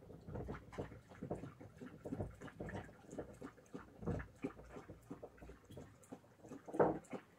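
A pet drinking water in the dark: a quick, irregular run of short wet sounds, with one louder one near the end.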